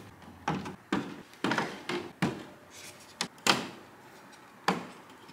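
Hard plastic grille parts knocking and clicking, about eight sharp knocks spread over a few seconds, as a tab on the gloss black honeycomb grille's end piece is pushed in and the parts are handled.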